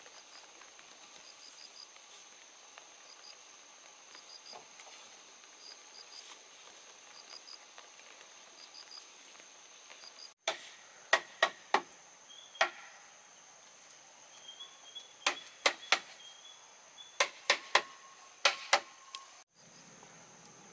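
Faint outdoor ambience with a steady high hum and small, regularly repeated chirps. About halfway through it gives way to a dozen or so sharp chopping strikes on wood, landing in quick clusters of two or three.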